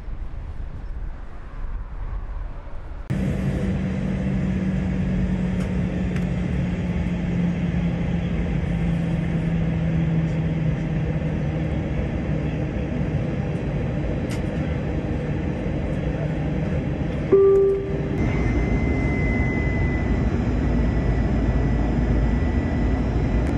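Aircraft engines running steadily, with a low hum that slides down in pitch, then the steady drone of engines inside a plane in flight, with a high thin whine. A brief loud tone cuts in about seventeen seconds in.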